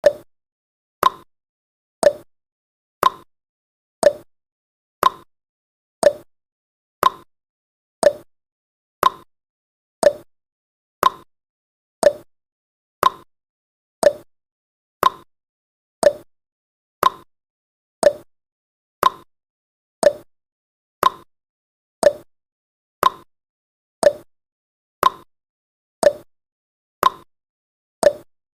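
Countdown timer's tick sound effect: one short, sharp tick each second, steady and even throughout.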